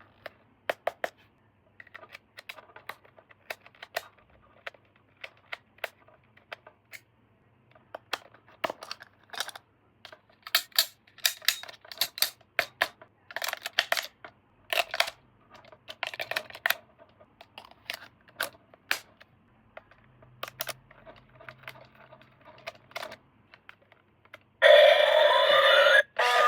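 Toy packaging being handled during an unboxing: irregular clicks, taps and rustles, some louder than others. Near the end, loud music starts suddenly.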